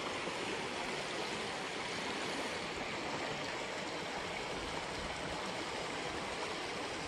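A shallow stream running steadily over rocks.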